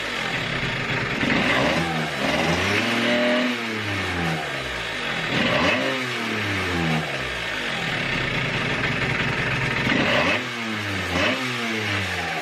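Piaggio Zip scooter engine running and being revved up and down several times by hand on the throttle, with steadier running in between.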